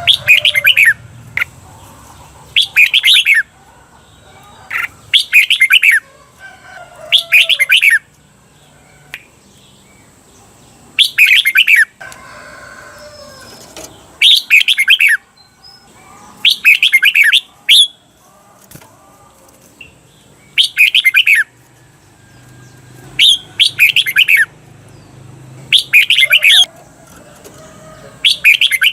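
Red-whiskered bulbul singing its 'doubled' (เบิ้ล) song: short, loud, warbled phrases repeated about a dozen times, one every one to three seconds, the kind of song keepers play to train caged bulbuls.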